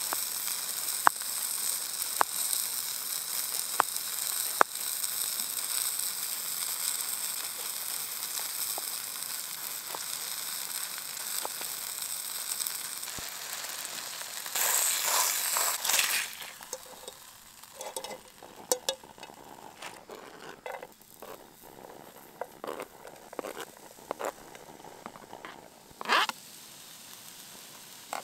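Chicken breast sizzling in oil in a small camping frying pan, a steady hiss with a few sharp knife taps on a plate in the first seconds. About fifteen seconds in the sizzle surges briefly, then drops away to quieter scattered clicks and scrapes, with one more short loud burst near the end.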